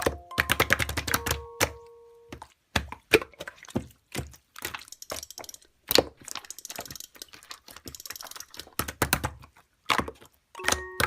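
Bursts of rapid sharp clicking and crackling, with snatches of background music at the start and near the end.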